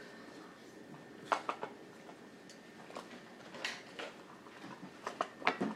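Light clinks and knocks of dishes and cutlery being handled during a meal, in short clusters about a second in, around the middle, and near the end.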